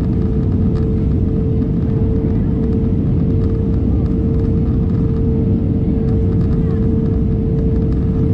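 Steady cabin noise inside an Airbus A320neo airliner: a deep, even rumble of engines and airflow with a steady mid-pitched tone running through it.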